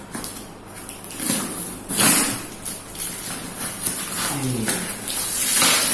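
Cardboard and tape packing being cut and torn open with a blunt knife: rasping, hissy strokes, a loud one about two seconds in and a longer one near the end, with lighter scraping between.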